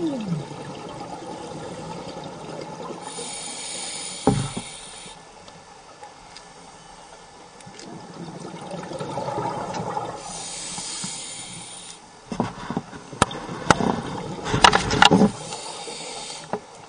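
Scuba diver breathing underwater through a regulator: three rushes of hissing exhaust bubbles several seconds apart. A single knock sounds about four seconds in, and a cluster of sharp clicks and knocks comes near the end.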